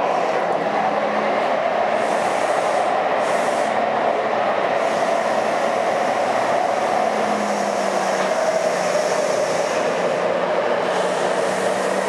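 Taipei Metro C301 train with retrofitted propulsion, heard from inside the car as it runs: a steady rumble of wheels on rail with a faint steady hum underneath.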